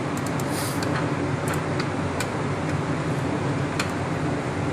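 A steady low machine hum, with a few light clicks of hand tools on metal.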